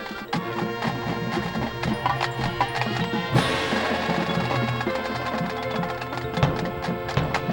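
High school marching band playing, winds with sharp percussion strokes, and a sudden loud crash of percussion about three and a half seconds in.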